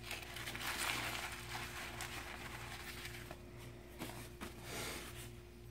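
Rustling and rubbing of a cloth shop rag as oily hands are wiped on it, over a faint steady hum.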